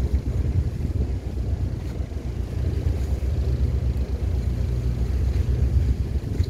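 Steady low rumble, wind buffeting the microphone.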